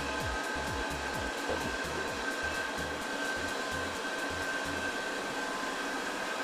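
A steady fan-like drone with a faint, constant whine, typical of kitchen ventilation. A quick run of low, thudding beats repeats underneath it.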